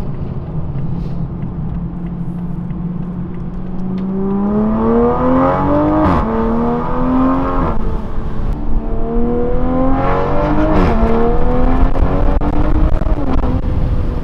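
Toyota GR Supra's turbocharged 3.0-litre inline-six with a catless Fi Exhaust valvetronic exhaust, heard from inside the cabin. It holds a steady note, then about four seconds in accelerates hard. The note climbs and drops back at each of four upshifts.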